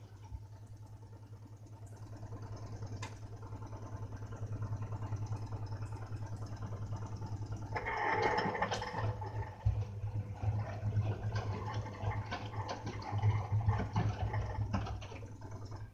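Front-loading washing machine running a wash cycle: a steady low motor hum, with water and laundry sloshing in the turning drum and a few clunks. The sloshing gets louder about eight seconds in.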